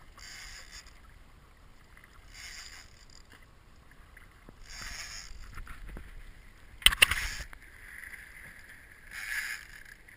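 Sea water slapping and sloshing against the hull of a small boat in repeated surges about every two seconds, with a sharper knock about seven seconds in.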